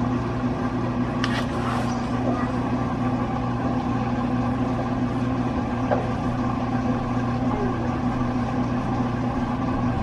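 Steady low mechanical hum of a running household appliance, unchanging throughout, with a short rustle about a second in.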